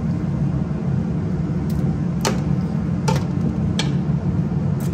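Steady low kitchen hum over a pot of thick chicken kurma on the stove, with four sharp clicks from about two seconds in, roughly a second apart.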